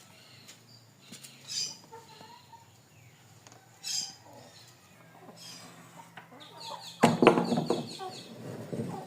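Chickens clucking with short high calls, then a loud burst of squawking and cackling about seven seconds in.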